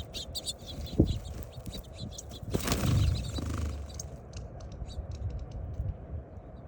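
Small birds chirping in quick short notes, with a sharp knock about a second in and a rustling burst a little past the middle; the chirps thin out near the end over a steady low rumble.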